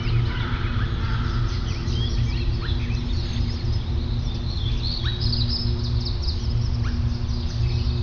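Songbird song: many quick, high chirps and short whistled slides in a busy run, over a steady low drone.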